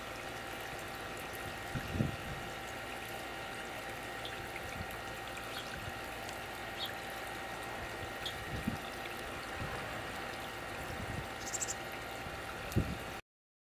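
Steady outdoor background hiss with a few low wind bumps on the microphone and several faint, very short high chirps. The sound cuts off just before the end.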